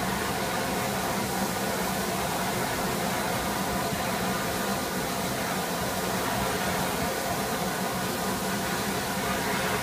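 Steam locomotive hissing steadily, with a faint hum underneath and no beat of exhaust.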